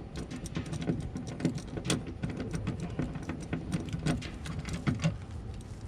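Irregular light clicks and taps of a screwdriver working a screw loose on a generator's metal cover plate.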